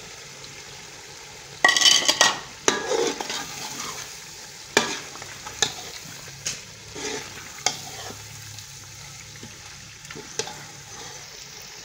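Boiled potatoes being stirred into a pot of frying egg masala with a steel ladle: a burst of sizzling about two seconds in, then a low steady sizzle with the ladle knocking against the aluminium pot now and then.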